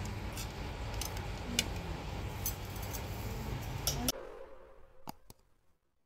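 Outdoor ambience at night: a steady low rumble with occasional sharp clicks, cutting off abruptly about four seconds in. Two faint clicks follow near the end.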